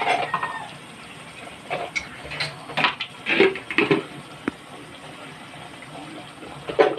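Metal cooking pot of chilli garlic sauce being handled and tilted: scattered knocks and scrapes, with one sharp clink about four and a half seconds in.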